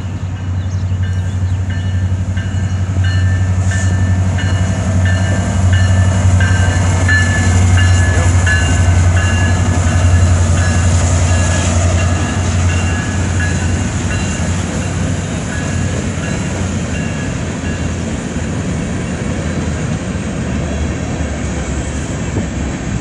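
Union Pacific diesel-electric freight locomotives passing close by with a deep engine rumble, loudest as the lead units go past, then the steady rolling of empty coal hopper cars on the rails.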